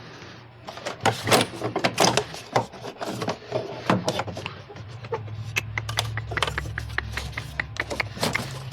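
Hands working parts loose in a car engine bay: irregular clicks, knocks and rubbing of plastic and metal pieces, with a low steady hum coming in about five seconds in.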